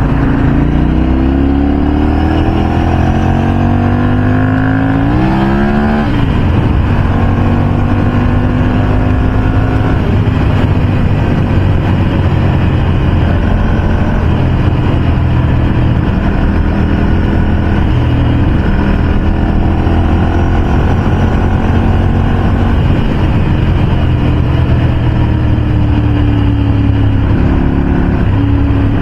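Ducati V-twin motorcycle engine pulling hard with wind rush, its pitch rising for about six seconds, then dropping sharply at a gear change and settling to a steadier cruise, rising a little again near the end.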